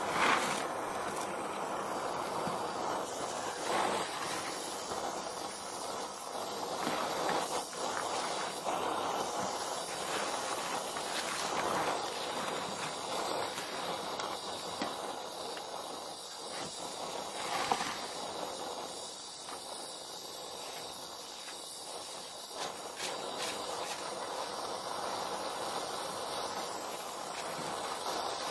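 Gas welding torch (Donmet 132A micro) burning with a steady hiss of the flame, with a few brief knocks.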